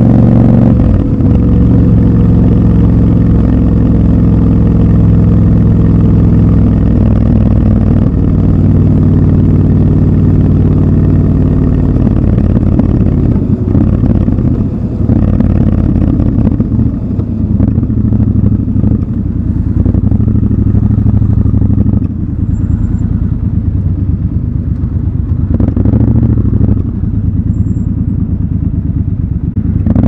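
Triumph Scrambler 1200 XC's parallel-twin engine running under way, with its pitch stepping several times in the first half. In the second half it is lower and less steady.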